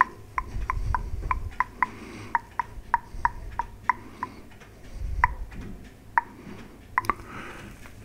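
Tongue clicks made with the mouth right up to a microphone: a quick, even run of about four a second for the first four seconds, then a few scattered ones. Breath puffs into the mic rumble low around one second and five seconds in.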